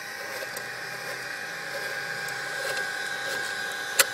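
Three small cooling fans in a Pelco PTZ dome camera housing running with a steady hum and whine, growing slightly louder. A sharp click near the end.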